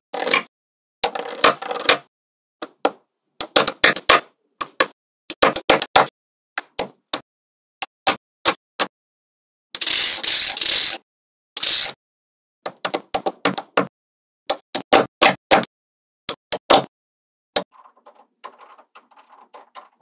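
Small magnetic balls clicking and clacking as they snap together, in quick clusters of sharp clicks as strips of balls are pressed onto a wall of balls, with a denser rattle lasting about a second near the middle.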